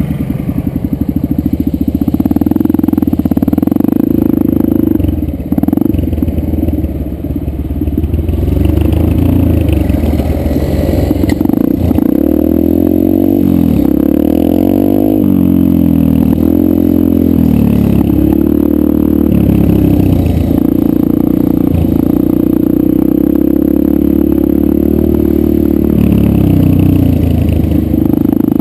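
A Yamaha 125 dirt bike's engine running under way on a dirt trail, heard close up. Its pitch rises and falls with throttle changes, most clearly in the middle and again near the end.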